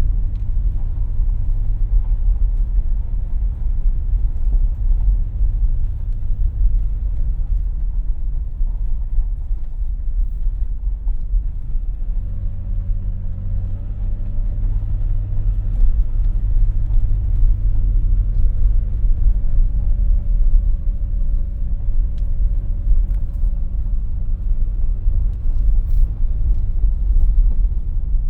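A vehicle's engine and tyres rumbling steadily as it is driven slowly along a rough road, heard from inside the cab. A low engine hum runs under the rumble and grows a little stronger about halfway through.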